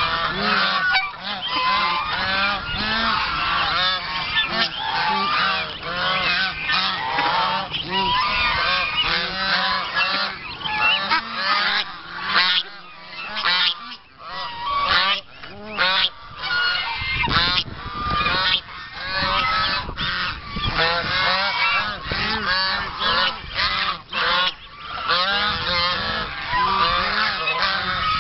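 A flock of white domestic geese honking without pause, many short calls overlapping, as they crowd around to be fed.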